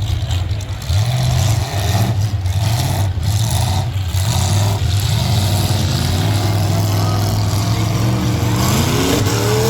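Demolition derby trucks' engines running loudly and steadily, with engines revving up in rising glides near the end.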